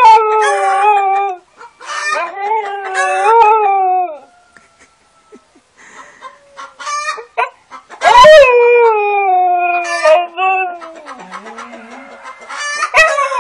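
Siberian husky howling in long, drawn-out wails that fall in pitch, answered by chickens clucking in short calls in the gaps between.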